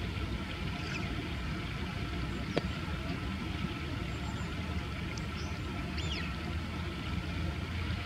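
Steady low outdoor background rumble, of the kind distant road traffic makes, with a few faint, short, falling high chirps from birds and one small click about two and a half seconds in.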